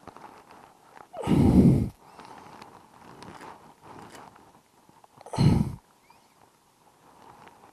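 Two heavy exhales of effort close to a chest-mounted microphone, one about a second in and a shorter one about five and a half seconds in. Between them come faint small clicks as a snap ring is worked by hand over the splines of a motorcycle final-drive shaft.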